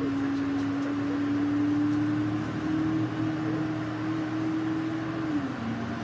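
Bus running at highway speed, heard from inside the cabin: an even rush of road noise with a steady drivetrain whine that rises slowly, then drops in pitch about five seconds in.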